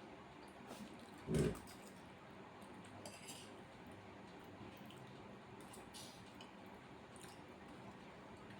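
Cutlery clinking and scraping on a plate while eating macaroni, with one louder dull knock about a second and a half in and a few faint clinks after it.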